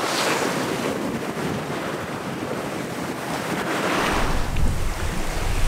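Sea water rushing and washing along a sailboat under way on the open ocean, swelling and easing in surges. From about four seconds in, wind buffets the microphone with a low rumble.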